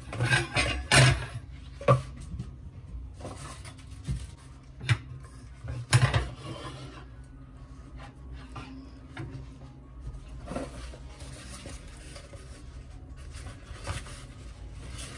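Handling noise of a phone being mounted on a tripod and a small stand: knocks and scrapes right against the microphone, loudest in the first second and again at about 2 and 6 seconds, then quieter rubbing.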